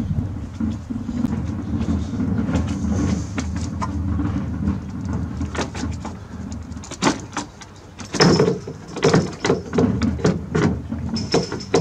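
Black plastic windscreen cowl panel on a Nissan Note being pulled up and flexed off its clips: a run of sharp plastic clicks, knocks and rattles through the second half. Before that there is a steady low rumble.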